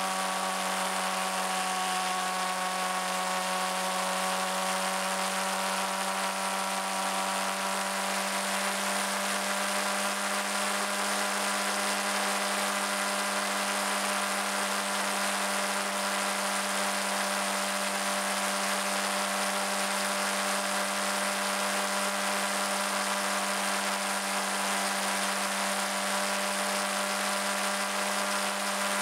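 Suzuki GSX-R600 inline-four engine running steadily at cruising speed, a high buzzing note that eases down slightly in the first few seconds and then holds, with wind and road rush over the microphone.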